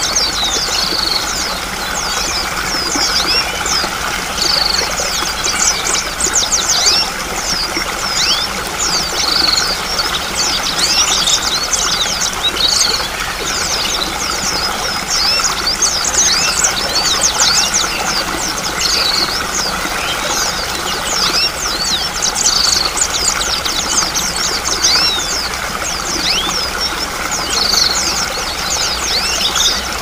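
Running water of a stream flowing steadily, with many small birds chirping over it in quick high calls and a short rounder note repeating every couple of seconds.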